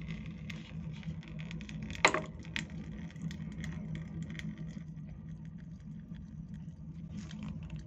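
Petrol dripping and trickling out of the opened float-chamber drain of a 50cc two-stroke scooter carburetor, heard as a patter of small irregular ticks over a steady low hum, with one sharp knock about two seconds in.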